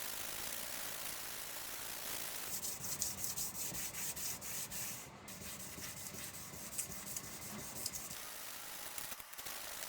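A nakiri kitchen knife blade being polished: steady rubbing and sanding, breaking into a run of quick, uneven scraping strokes from about two and a half seconds in until about eight seconds in.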